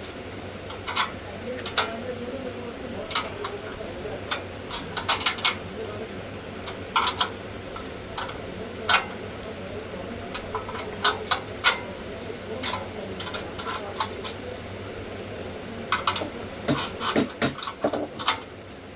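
Irregular sharp metal clinks and knocks from parts and tools being handled, with faint voices in the background.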